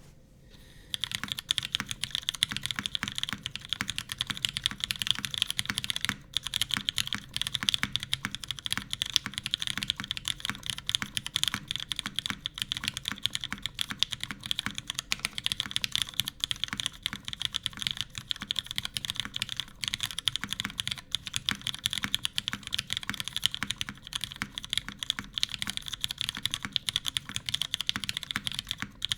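Steady fast typing on a custom mechanical keyboard with lubed linear Cherry MX Retooled Black switches in a full aluminum top-mount plate with no foam, under CRP keycaps: a dense run of keystroke clacks that starts about a second in, with a brief pause around six seconds in.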